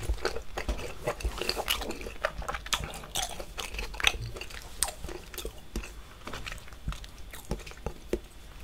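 A person chewing a mouthful of chewy seafood close to the microphone, with lips closed. Wet, irregular clicks and smacks come several times a second.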